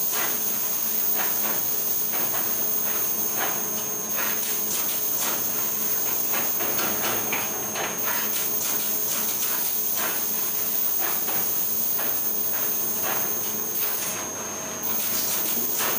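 Steady machine hum and hiss with a constant high whine from a semi-automatic screen-printing machine, with frequent small irregular clicks and knocks as a board is handled on its print bed.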